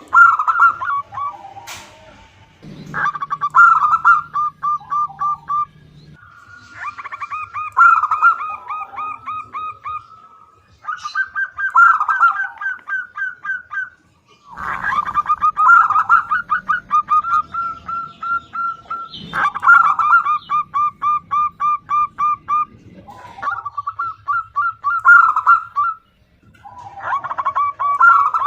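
Female zebra dove (perkutut) calling: repeated phrases of quick, short cooing notes, each phrase lasting two to four seconds with brief pauses between.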